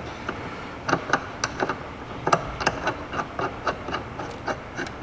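Irregular light metallic clicks and taps of small hardware being handled by hand: a harness mounting bolt, spacer and nut being fitted through a seat bracket. There are about a dozen clicks, some in quick pairs.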